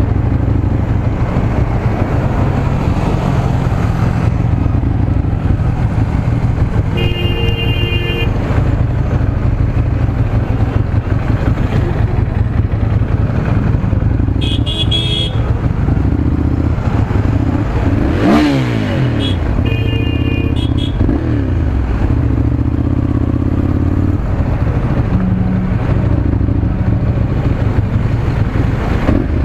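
Ducati Monster 796's air-cooled L-twin engine, with its stock exhaust, running steadily while riding in slow traffic. Vehicle horns sound three times, and there is a brief falling-then-rising sweep in pitch a little past the middle.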